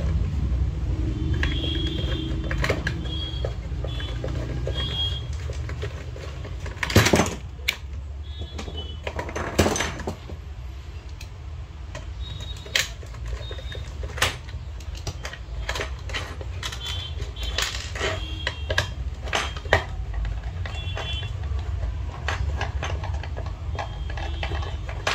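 Screwdriver clicking and scraping on the screws of a car ECM's aluminium casing as they are undone, with two louder knocks about 7 and 10 seconds in, over a steady low hum.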